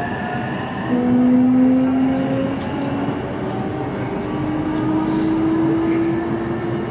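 E233 series 3000-subseries electric train's inverter and traction motors whining as it picks up speed, heard from inside the passenger car: several steady tones rising slowly in pitch over the running rumble of the wheels on the rails.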